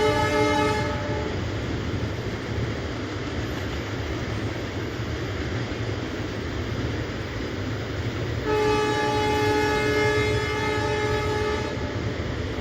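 Indian local train's horn: a blast that stops within the first second, then after a stretch of the train's steady low rumble a second blast of about three seconds, two-thirds of the way through.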